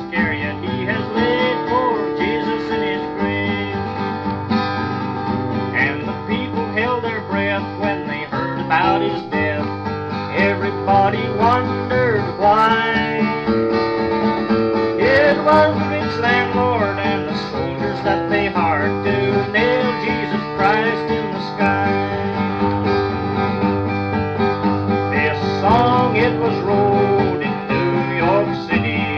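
Acoustic guitar music in a country-folk style, with steady bass notes under a higher melody line that slides and bends in pitch.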